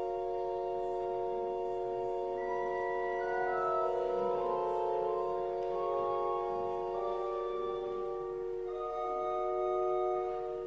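Church organ playing soft sustained chords: a low chord is held throughout while higher notes change slowly above it.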